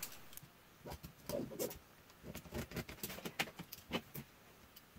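Light handling noises: a cotton dress shirt rustling on a cutting mat, with a scatter of small clicks and taps from a plastic ruler and a pen being moved and picked up.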